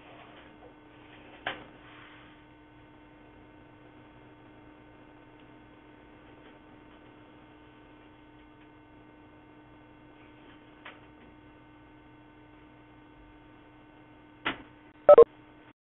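Steady electrical hum on the audio line, with a few faint clicks and, near the end, a sharper click followed by two loud clicks; the hum cuts out just afterwards.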